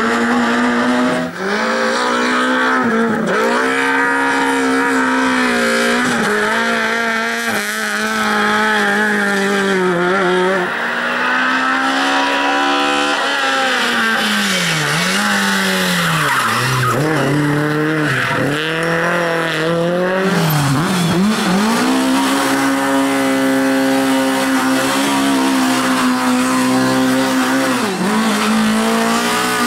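Lada rally car engines revving hard, held at high revs for seconds at a time, then dropping and climbing again several times, with tyre squeal as the cars slide.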